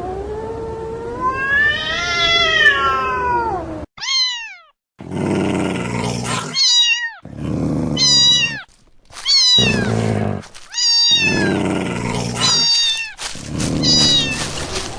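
Cats fighting. A long, wavering yowl comes first, then a string of low growls, each breaking off into a sharp falling screech about every second and a half.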